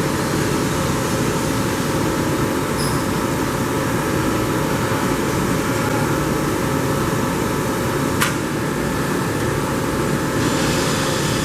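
Large CNC vertical boring mill running with a steady mechanical hum and whir. There is one sharp click about eight seconds in.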